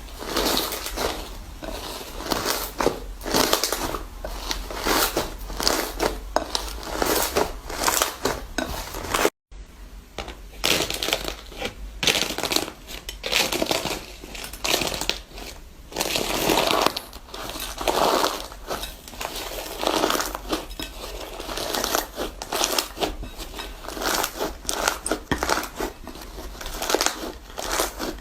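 Dense, irregular crunching and crackling as a material is pressed and crushed, with a brief silent break about nine seconds in.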